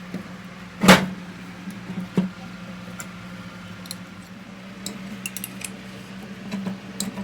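Metal parts and tools being handled on a workbench: a sharp metallic knock about a second in, a lighter one about a second later, then scattered small clinks near the end, over a steady low hum.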